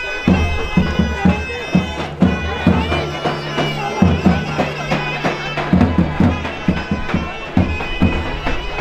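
Live Thracian folk dance music: a shrill reed wind instrument, such as a zurna or gayda bagpipe, plays an ornamented melody over a steady drum beat of about three strokes a second.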